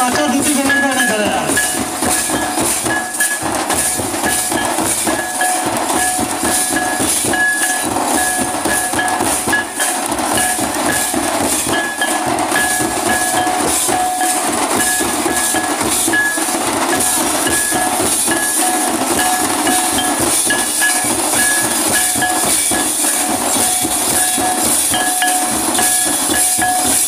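Folk dance drums beaten in a fast, continuous rhythm, with a repeated high held note coming and going over them, loud and harsh.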